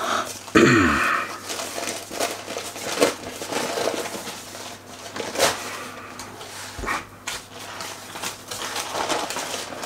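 Rolled puff pastry sheet being unrolled from its baking paper, the paper crinkling and rustling in short scattered bursts. About half a second in, a brief cry falls in pitch and is the loudest sound.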